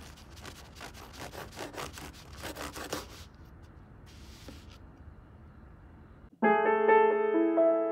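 Knife sawing through a baked butter-bread roll with quick back-and-forth strokes for about three seconds, then quieter rustling as the cut roll is handled. Piano music starts near the end.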